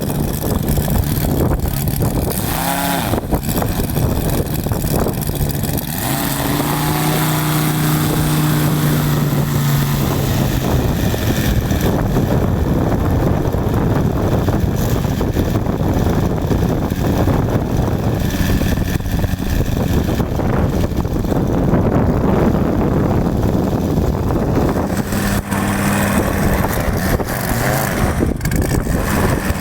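Engine and propeller of a large radio-controlled model airplane running, over a loud rushing noise. The engine tone comes and goes, falling in pitch around eight to ten seconds in as the plane passes, and holds steadier near the end.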